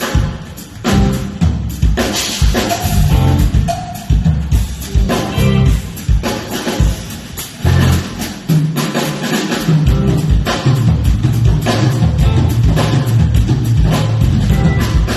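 Live funk band playing, led by the drum kit's kick and snare. The low end fills in and runs steadily from about eight seconds in.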